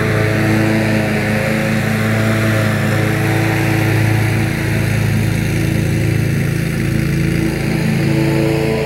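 Commercial lawn mower engine running at a steady speed under load, with an even, unchanging pitch.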